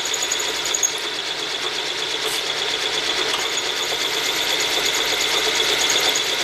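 A 5/16-inch drill bit in a mill's spindle drilling through aluminium under hand feed, running steadily with a fast, even rattle and a high whine. The drill is in an interrupted cut, breaking partly into a recess in the part.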